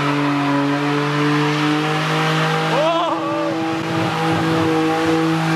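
Car engine held at steady high revs during a burnout, its rear tyres spinning and squealing on the concrete and pouring out smoke.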